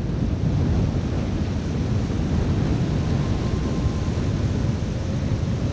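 Strong wind blowing across the microphone: a steady, loud low rush with no pauses, and a faint thin whine about three to four seconds in.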